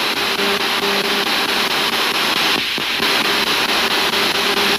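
Ghost box (spirit box) radio sweeping through stations: a steady loud hiss of static, rapidly chopped, with short broken snatches of tone.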